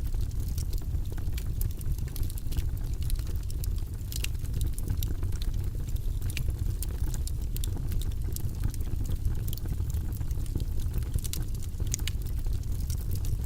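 Logs burning in a fireplace: a steady low rumble of flame with frequent sharp crackles and pops at irregular intervals.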